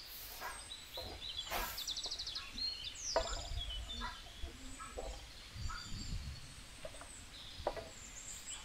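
Birds chirping and calling in the trees: short high chirps, a couple of rapid trills and a falling whistle, with a few sharper calls in between. A low rumble sounds near the middle.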